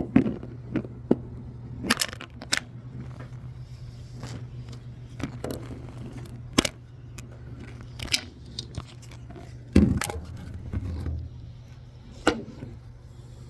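Handling noise close to the microphone: scattered knocks, taps and scrapes at irregular times, as from a camera being grabbed and moved around, over a low steady hum.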